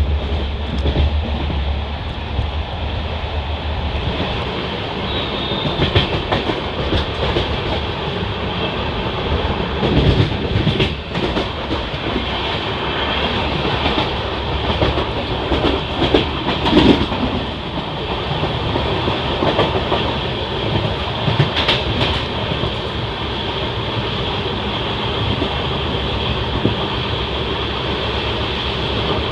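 Passenger train running on the track: a steady rumble of the moving coach with wheels clattering over rail joints, and a few sharper knocks scattered through.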